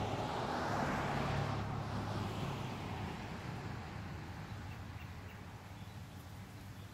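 A vehicle passing by: a rush of noise that swells in the first second or so and then fades away, over a steady low hum.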